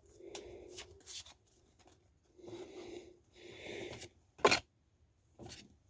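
Pokémon trading cards being handled, with a few sharp card clicks; the loudest comes about four and a half seconds in. Soft breaths fall in between.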